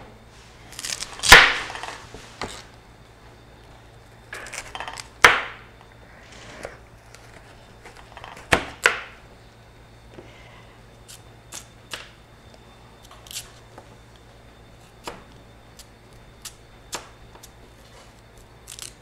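Kitchen knife cutting raw sweet potato into thin strips: short crunching cuts ending in sharp knocks, the loudest about a second in, others near five and nine seconds, then lighter clicks every second or so.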